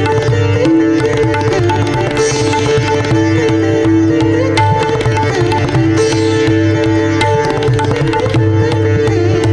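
Sitar and tabla playing together, a Banarasi thumri in Mishra Bhairavi: the sitar's plucked melody over a dense, continuous run of tabla strokes.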